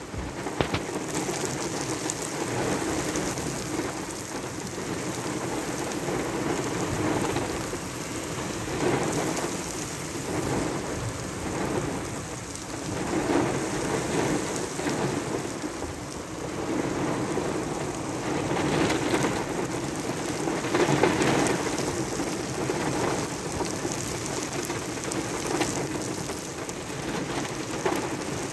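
Heavy monsoon downpour falling on wet pavement, a steady hiss that swells and eases in waves every few seconds.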